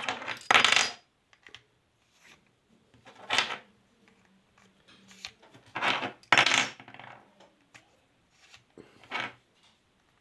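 Small steel double-ended screwdriver bits clicking and clinking as they are handled and pushed into the slots of a bit holder, in several short bursts.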